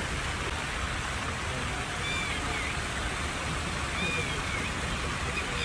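Fountain water splashing steadily into its pool. A bird gives short whistled chirps about two seconds in and again about four seconds in.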